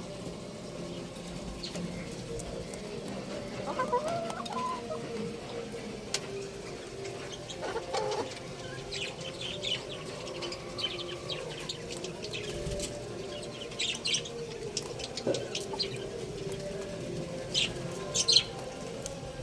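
Young rooster chirping and clucking in short, scattered calls, with clusters of quick high chirps later on, over a steady low background hum.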